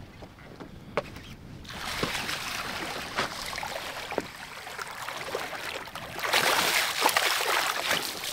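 A hooked largemouth bass thrashing and splashing at the surface of the lake, with a louder rush of splashing and dripping water near the end as the fish is swung out of the water.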